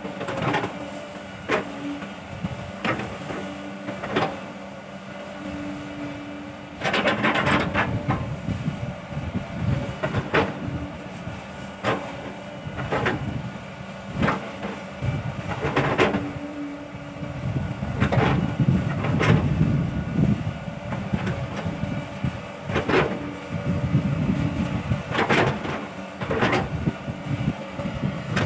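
A Sumitomo hydraulic excavator's diesel engine runs while the machine digs, with sharp clanks from the bucket and arm every second or two. The engine and digging noise grow louder and rougher about a quarter of the way in, and again through the second half.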